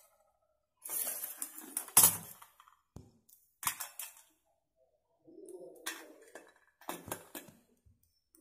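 Hands handling cashews and raisins in a small steel bowl: short bursts of rustling and light clicks and clinks, with a sharp click about two seconds in.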